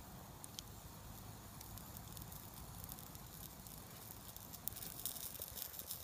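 Wood campfire crackling faintly, with small pops and clicks that come more often in the second half.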